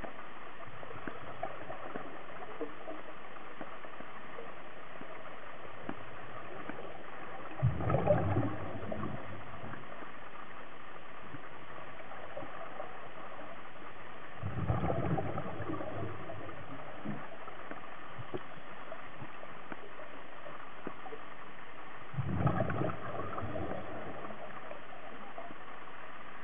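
Steady water noise with three brief, louder, deeper swells of gurgling or sloshing, about seven seconds apart.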